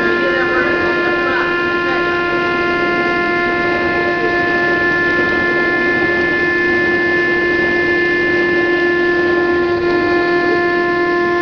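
Woodworking CNC router running with a steady, unchanging whine over a constant rushing noise.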